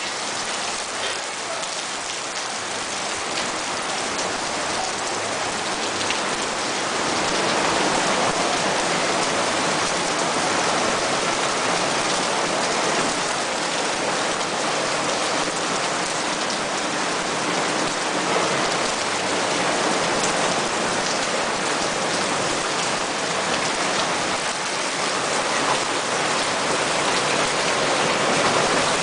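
Heavy tropical rain pouring down steadily, a dense even hiss of drops hitting surfaces, swelling a little louder after several seconds.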